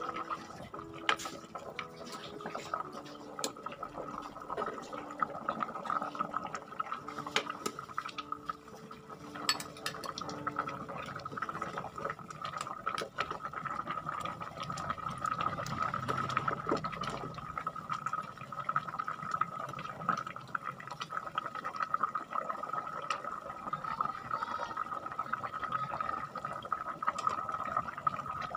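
Pot of rawon (black beef-and-offal soup) bubbling at a boil, stirred with a ladle that clinks and scrapes against the enamel pot now and then, over a steady high-pitched tone.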